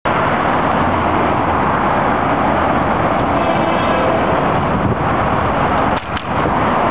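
Steady wash of freeway traffic noise from the overcrossing. A distant locomotive horn faintly begins to sound about three seconds in.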